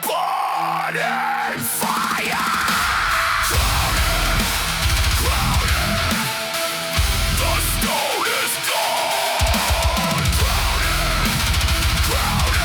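Deathcore music: heavy distorted guitars and drums. The low end cuts out briefly twice in a stop-start pattern.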